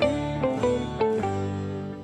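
Background music: a light instrumental tune of plucked notes over sustained low tones, starting fresh at the beginning with a new phrase of several notes.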